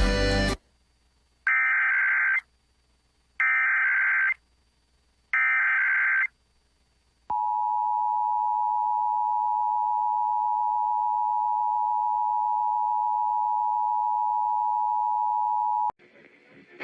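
Emergency Alert System alert opening: three short bursts of SAME digital header data, each about a second long, then the steady two-tone EAS attention signal held for about eight and a half seconds before cutting off. A snatch of music ends just before the first burst.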